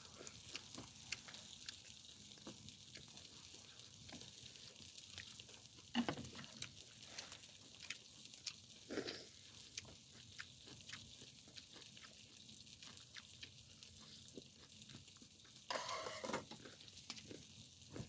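Steady sizzle with scattered crackles from pork belly grilling over an oak charcoal fire, with a few louder short sounds about six, nine and sixteen seconds in.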